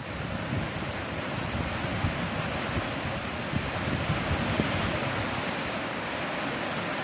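Heavy rain falling steadily in a strong wind, a constant hiss with an uneven low rumble of wind buffeting the microphone.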